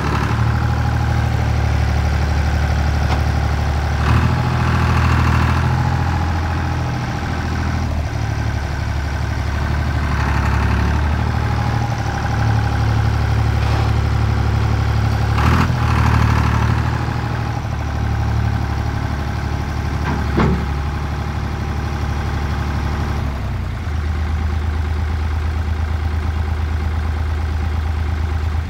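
Universal 453 DT four-wheel-drive loader tractor's diesel engine running steadily as the tractor drives and manoeuvres, its note rising and falling slightly, with three short knocks along the way.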